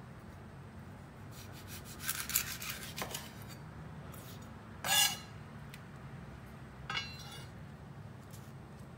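Chef's knife cutting and scraping the skin off a dragon fruit on a wooden cutting board: a run of short scrapes about two to three seconds in, a louder single cut about five seconds in and a smaller one near seven seconds, over a steady low hum.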